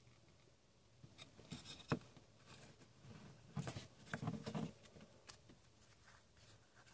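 Faint rustling and light taps of trading cards and their foil pack wrapper being handled, in short scattered bursts, thickest about a second and a half in and again around four seconds in.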